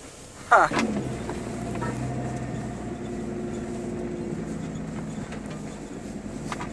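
Pickup truck's engine running steadily under load, heard from inside the cab while crawling a rough off-road trail. About half a second in, a loud sudden sound drops sharply in pitch over half a second.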